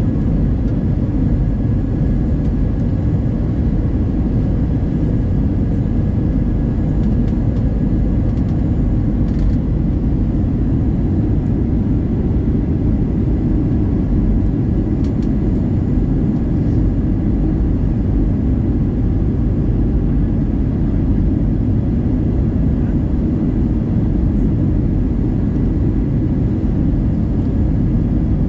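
Cabin noise inside an Airbus A320-212 airliner on its approach: a steady, loud low rumble of the engines and airflow with a faint thin whine over it.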